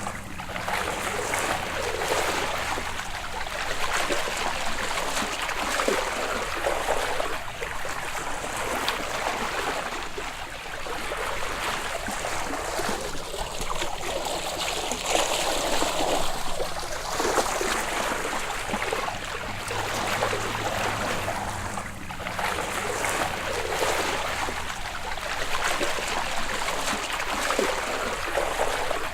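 Surface water sloshing and lapping in the open sea, swelling and easing every few seconds, as heard just after coming up from underwater.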